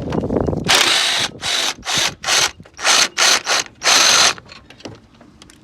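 Hand ratchet wrench clicking in about seven quick back-and-forth strokes, working loose a stubborn battery-tray bolt.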